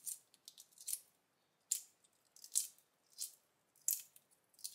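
Shell of a hard-boiled egg crackling as it is peeled by hand: a string of short, crisp crackles about every half second.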